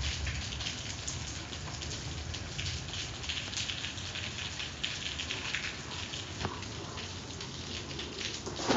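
Steady rain falling, with many small drop hits.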